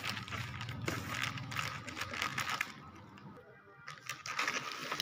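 Clear plastic accessory bag crinkling and rustling as it is handled and opened, with a quieter lull about three seconds in.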